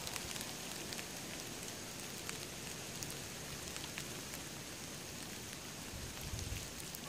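Light rain pattering: a steady hiss scattered with sharp drop ticks, over a thin steady high tone.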